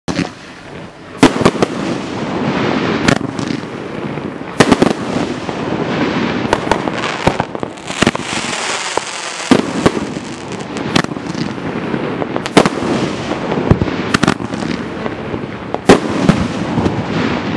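Dominator 1.4 Pro 25-shot green peony finale cake (500 gram) firing. It sends up a rapid, continuous string of shells and breaks, with sharp bangs about every one and a half seconds over a steady crackle. It starts about a second in.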